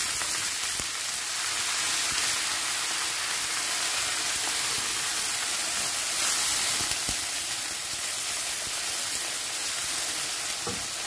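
Steady sizzling of browned onions and whole spices in vanaspati ghee as a little water goes into the kadai, with sliced potatoes frying in a second pan. A wooden spatula stirs and knocks against the pan a few times.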